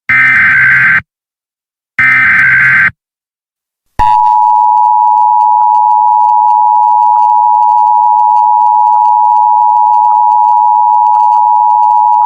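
Emergency Alert System tones: two bursts of SAME header data, each about a second long and a second apart, then about four seconds in the EAS two-tone attention signal, a steady loud tone held for about eight seconds that cuts off sharply.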